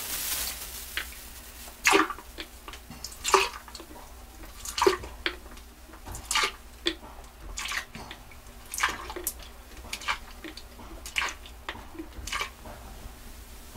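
Capfuls of cleaning liquid poured one after another into a boat's toilet bowl: a series of short splashes, about one every second and a half.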